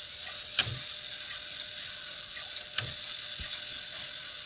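Wall clock movement clicking: two sharp mechanical clicks about two seconds apart as the repaired chime mechanism is run.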